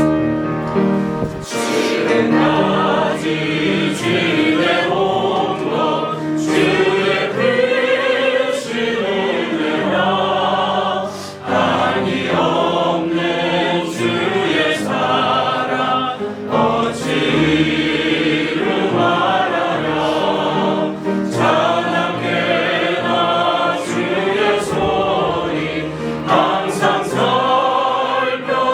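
A small mixed choir singing a hymn with piano accompaniment, the voices in harmony with a few brief breaths between phrases.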